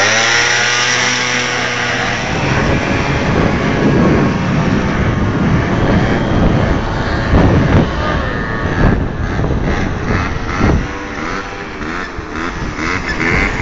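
A motor vehicle's engine running: a steady hum at first, then a rough rushing noise with a few louder knocks.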